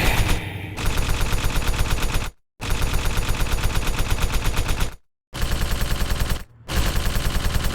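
Rapid, evenly spaced machine-gun fire over a steady low drone, broken three times by sudden short silences.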